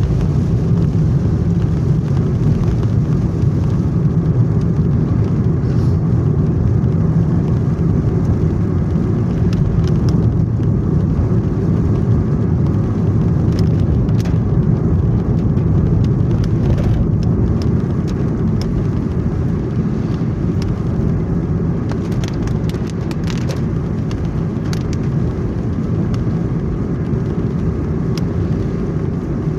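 Steady drone of a car driving, engine and tyre noise heard from inside the cabin, with a few faint ticks.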